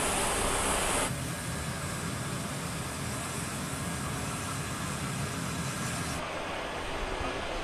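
M1A2 Abrams tank's gas-turbine engine running as the tank moves over a C-17's loading ramp: a steady low rumble with no clear beat. The sound changes abruptly about a second in, losing a high hiss, and again near the end.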